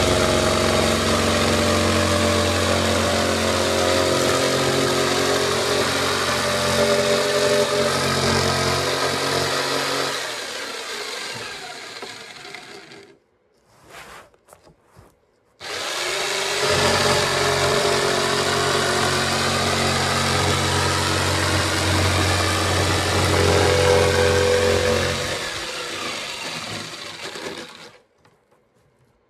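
Corded jigsaw cutting a sheet of wall paneling. The motor runs steadily for about ten seconds, dies away and stops, then starts abruptly about halfway through for a second cut and dies away again near the end.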